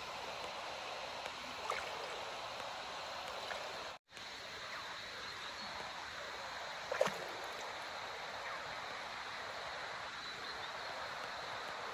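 Shallow rocky river flowing: a steady rush of water. There is a brief sharper sound about seven seconds in, and the sound cuts out for a moment about four seconds in.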